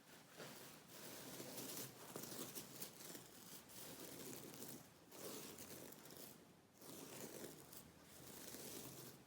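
Quiet, close-up scratching with fingernails, raspy strokes in runs of a few seconds with two short pauses.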